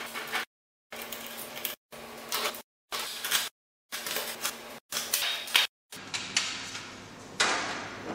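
Screwdriver backing out the screws of a KKmoon DVR's sheet-metal case, then the metal lid being slid off and handled: small clicks, scrapes and rattles, chopped into short pieces with brief dead-silent gaps. About seven seconds in comes a louder metal scrape.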